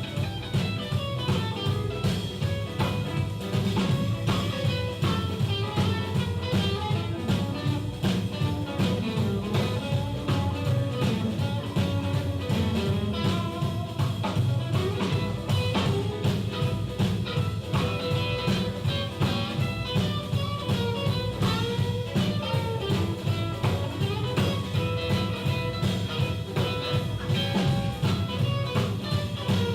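Live blues band playing an instrumental passage: a guitar carries the melody over a steady drum-kit beat and bass.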